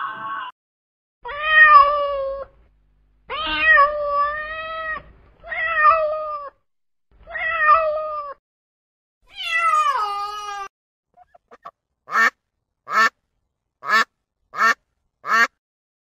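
A kitten meowing five times, each meow about a second long, the last one sliding down in pitch. It is followed by a duck giving five short, evenly spaced quacks near the end.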